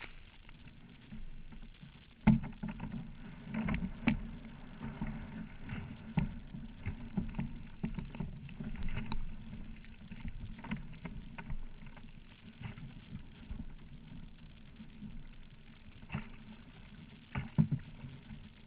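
Perception Scooter plastic sit-on-top kayak being launched, its hull and paddle giving irregular knocks and thumps over a steady low rumble. The loudest knocks come about two seconds in and twice near the end.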